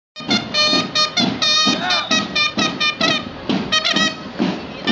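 Marching band playing: brass horns carry a melody over a steady drumbeat of about three beats a second.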